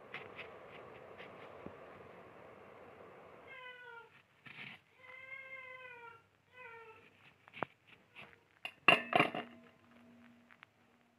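A cat meowing three times, each call rising then falling in pitch. Sharp clicks from cutting guava with a knife follow, with a louder clatter near the end and a short ringing tone after it.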